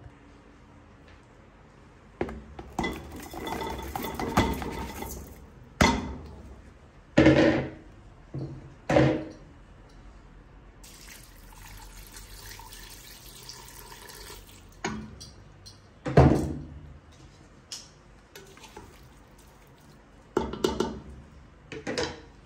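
Stainless steel cooking pot being knocked and clanked several times, with short ringing after each hit, while raw minced meat is handled in it. Around the middle, water is poured into the pot onto the meat, making a steady splashing hiss for a few seconds.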